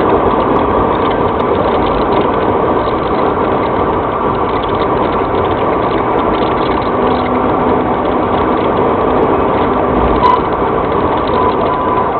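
Steady road, wind and engine noise inside a patrol car running at about 85 mph on the highway. A single knock comes about ten seconds in, and a repeated high beep starts near the end.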